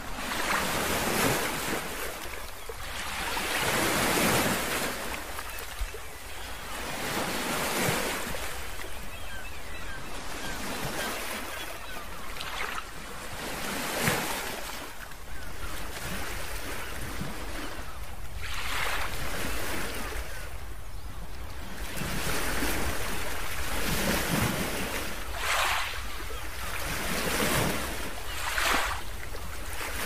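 Ocean surf: waves washing in and drawing back, swelling and fading every few seconds.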